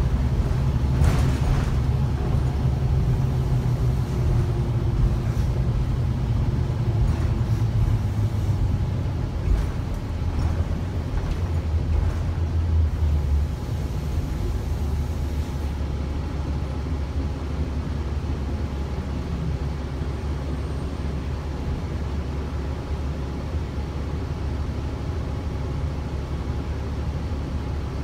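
Gillig BRT transit bus heard from inside the cabin: low engine and drivetrain rumble with road noise. About halfway through the rumble eases to a slightly quieter, steadier drone.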